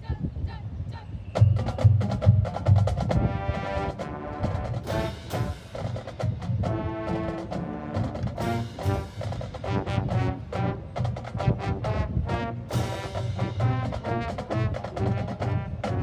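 High school marching band playing its field show: brass and woodwind chords over a drumline and front-ensemble mallet percussion, with many sharp drum strikes. It swells louder about a second and a half in.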